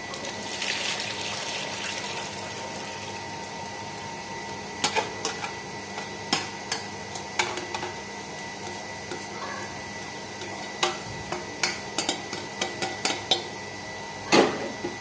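Steeped ginger water poured through a strainer, a trickle of liquid for the first couple of seconds. Then kitchen utensils clink and knock irregularly against the strainer and pot, with one louder knock near the end.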